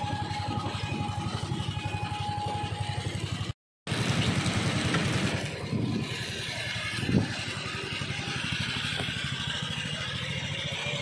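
An engine running steadily with a fast, even throb. The sound drops out for a moment about three and a half seconds in, then carries on, with one brief knock about seven seconds in.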